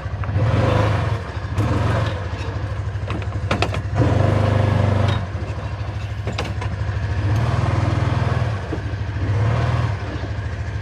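Side-by-side UTV engine running while being reversed into position, revving up in short bursts about five times. A few sharp knocks are heard, the clearest one about four seconds in.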